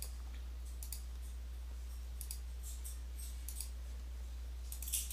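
A few faint, short clicks scattered over a steady low hum, with a small cluster of them near the end.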